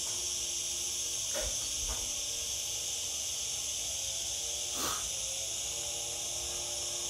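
Steady high-pitched hiss with a faint low hum of steady tones underneath, and a few soft clicks, twice about a second and a half in and once near five seconds.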